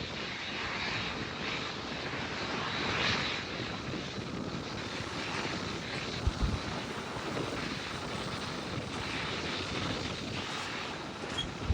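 Jet engines of a Boeing 787 airliner running, a steady rushing noise with a faint high whine, with two short low thumps about six seconds in.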